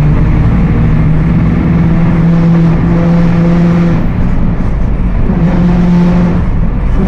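Mercedes-Benz OF 1721 BlueTec 5 bus on the move, its rear differential droning: a steady pitched hum over the low running noise that rises slightly about half a second in, fades around four seconds and returns just after five. The drone is the sign of a fault in the rear axle.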